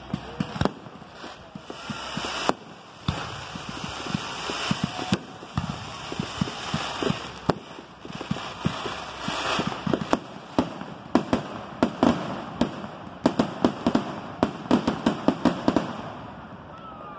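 Fireworks going off: a string of sharp bangs from bursting aerial shells over a crackling hiss, building to a fast run of pops over the last several seconds.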